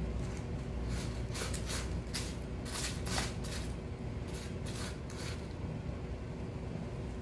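A Devon Rex kitten raking granular litter with its front paws in a disposable aluminium foil pan: a dozen or so short, dry scratching strokes, coming thickest through the middle.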